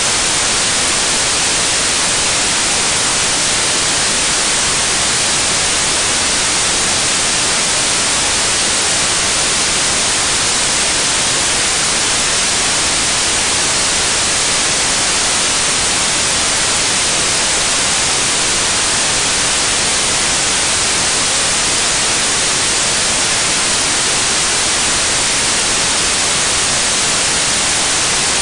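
Loud, steady hiss of static like white noise, even and unchanging, with no other sound heard through it.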